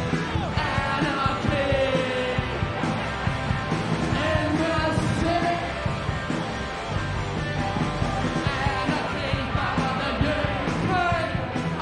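Punk rock music: a loud band with distorted guitars and drums, and a shouted, half-sung lead vocal.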